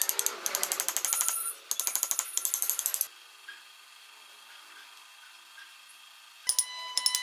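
Rapid mechanical clicking, about ten clicks a second, in two runs over the first three seconds. It stops, then starts again near the end.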